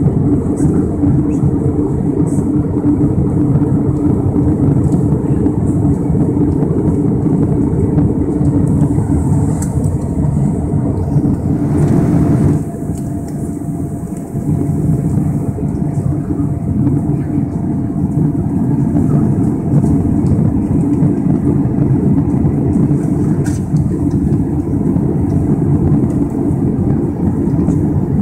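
Airbus A320 cabin noise during descent: a steady rumble of engines and airflow, heard inside the cabin. About halfway through it drops slightly in level, and a faint steady whine comes in and holds.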